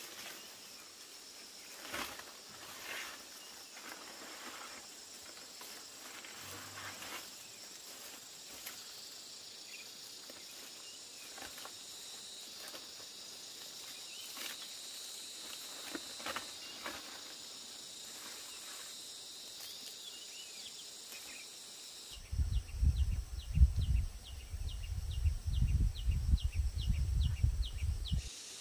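Insects buzzing steadily at a high pitch, with scattered clicks and knocks. For the last six seconds a loud low rumbling comes and goes, with a fast regular ticking about three times a second.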